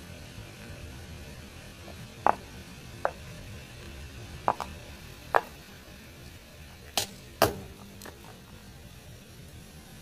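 Small plastic tubs of modelling dough cracking and popping as a slowly rolling car tyre crushes them: about eight sharp, separate cracks spread over several seconds, over a low steady rumble.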